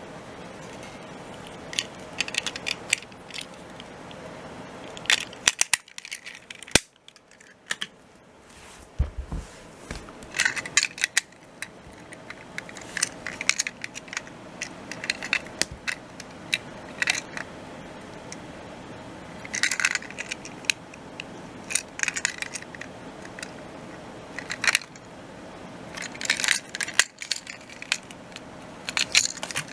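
Hard plastic clicking and clattering as Plarail toy train cars are handled: irregular small knocks and rattles from the plastic bodies and bogies, in bunches with short pauses, quieter for a few seconds early on.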